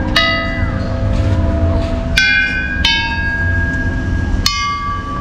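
Large hanging metal tube chimes struck four times with a wooden stick, each strike ringing on with several clear tones that fade slowly.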